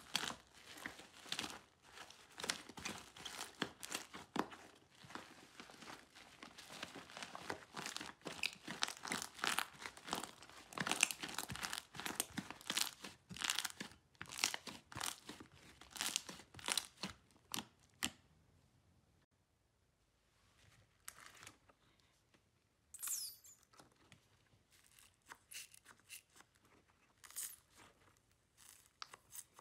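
Hands kneading and stretching stringy slime in a glass dish: dense, fast crackling and popping. About eighteen seconds in it turns to sparse, quieter pops and squelches as a block of slime cubes is squeezed.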